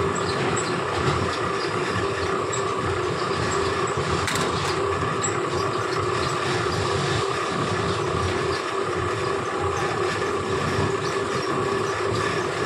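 Fabric checking machine running steadily, its motor and rollers drawing cloth past a wheel-type length counter: a constant mechanical rush with a steady hum in it. There is one brief click about four seconds in.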